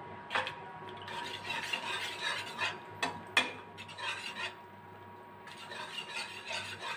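A metal spoon stirring thin, watery soup in a metal kadai, scraping and sloshing around the pan with a few sharp clinks against its side.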